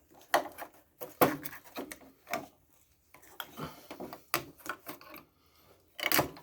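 Fan blade of an old hair dryer being worked and pushed off its small motor's shaft: irregular clicks, knocks and scraping, with a couple of short pauses.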